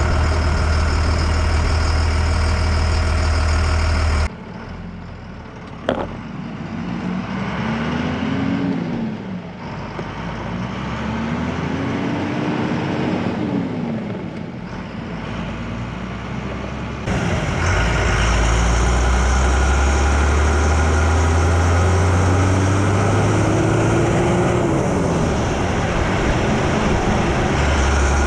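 First-gen Dodge Cummins diesel truck pulling away and accelerating. The engine note climbs and drops back several times as it goes up through the gears. A loud low drone cuts in and out abruptly, and there is a single sharp click a few seconds in.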